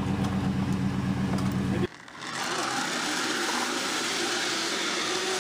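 Vehicle engine running with a steady low throb, which cuts off abruptly about two seconds in. A steady rushing hiss follows.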